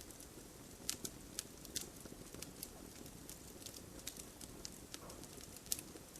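Wood fire crackling: irregular sharp pops and snaps over a low steady hiss, the loudest snaps about a second in, near two seconds and near the end.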